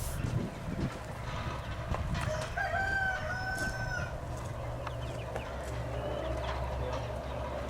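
A rooster crowing once, a single drawn-out call of about a second and a half, over a steady low background rumble.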